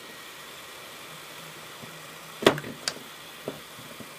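Hot air gun of an 862D+ SMD rework station blowing a steady hiss of air onto a circuit board to melt the solder holding two wires. About two and a half seconds in, a sharp knock and a second click follow as the wires are pulled free of the board.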